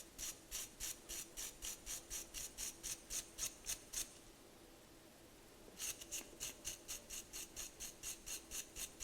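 Small brass wire brush scrubbing a lighter's file wheel in quick back-and-forth strokes, about three a second, with a pause of under two seconds about four seconds in.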